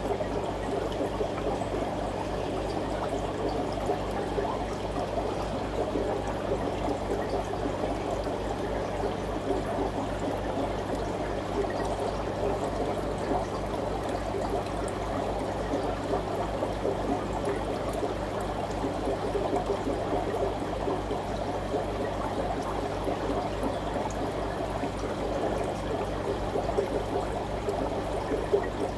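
Steady aquarium water sound, trickling and bubbling, over a low steady hum.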